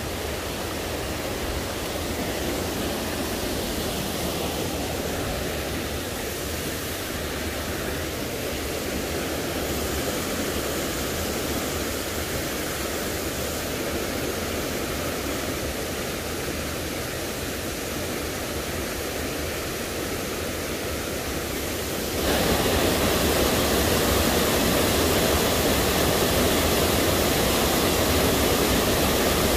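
Rocky jungle stream and small waterfall rushing, a steady noise of tumbling water. About three-quarters of the way through it becomes suddenly louder and fuller as the waterfall comes close.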